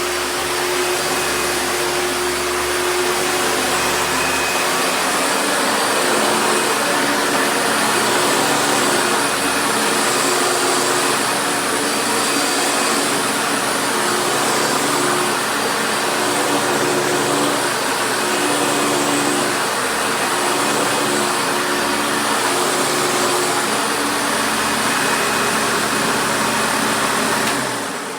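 Hoover upright vacuum cleaner with a 12-amp motor running steadily, then switched off near the end, its motor winding down.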